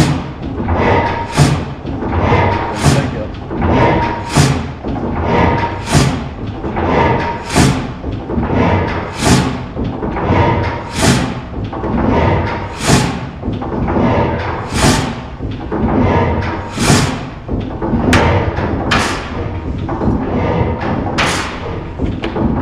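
Large horizontal stationary gas engine running slowly, with its big flywheel turning. It gives one heavy, regular beat every second and a half or so, and the beats spread out to about two seconds apart as the engine slows down.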